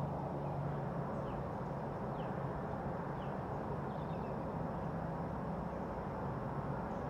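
Steady low background rumble with a faint hum, and a few faint short high chirps in the first few seconds.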